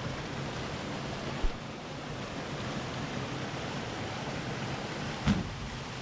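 Steady rushing noise, with a short low thump about a second and a half in and a sharper knock near the end.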